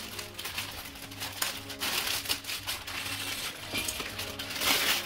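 A clear plastic parts bag crinkling as it is torn open, and small plastic Lego bricks clattering out of it onto a cloth-covered table.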